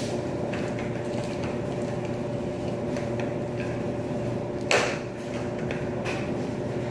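Steady machine hum of laundry-room washers and dryers running, with one sharp knock about two-thirds of the way through.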